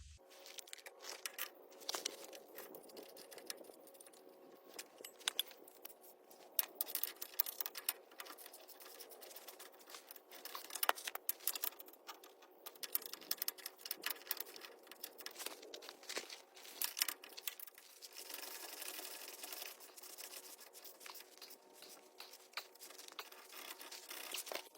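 Hand tools and metal suspension parts clinking, clicking and scraping at irregular intervals while a sway bar end link and shock are fitted, over a faint steady hum.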